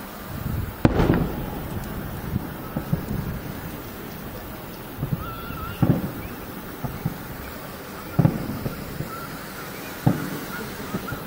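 Distant aerial firework shells bursting as a series of rumbling booms. The loudest comes about a second in, followed closely by a second, and further booms land about six, eight and ten seconds in.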